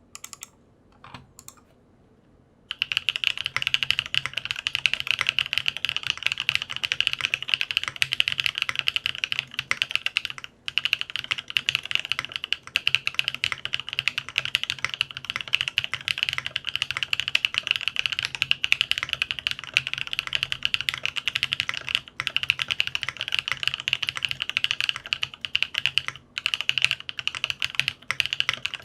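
Fast continuous typing on a Geonworks Frog TKL mechanical keyboard with stock HC Studio Roselle switches, a 1.5 mm POM plate, no foam and ABS double-shot keycaps. A few single keystrokes come first, then steady rapid typing from about three seconds in, with a few brief pauses.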